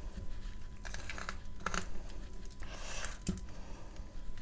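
Crinkling and crunching handling sounds while crumbled edible clay is being mixed: a few sharp clicks and a short rustle about three seconds in.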